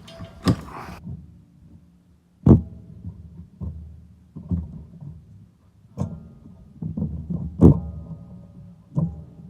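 About seven irregular knocks and thuds as a snug-fitting rear wheel assembly is worked off the axle of a John Deere WG48A mower. The loudest come about two and a half seconds in and near the end.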